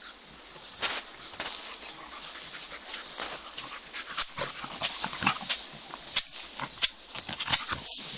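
A dog's sounds mixed with a string of short sharp clicks and knocks, which come more often after about four seconds.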